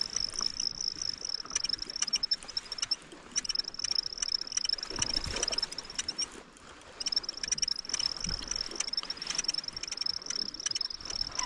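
A fishing reel being cranked to fight a hooked bass, with a steady high-pitched clicking whir that stops briefly twice. Water sloshes against the kayak, with a few low knocks.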